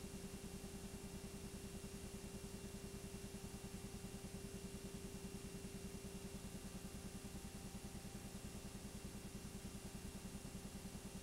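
Steady mechanical hum with a fast, even pulse, unchanging throughout.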